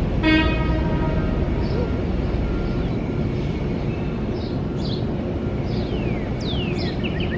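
Outdoor city background noise: a steady low rumble. A single held, pitched tone sounds for about a second and a half near the start, and short bird chirps come in toward the end.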